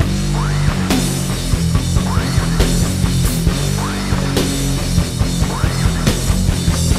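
Heavy metal band track: distorted electric guitars, bass and a pounding drum kit with cymbals, plus a high swooping sound that rises and falls about every second and a half.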